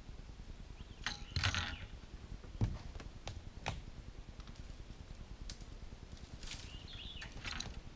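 Scattered knocks and clicks from an angler moving and handling gear on the deck of an aluminium bass boat, the loudest about a second and a half and two and a half seconds in, over a low steady rumble.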